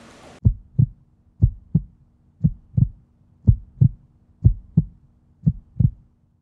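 Heartbeat sound effect: a steady double thump, lub-dub, about once a second, over a faint low hum.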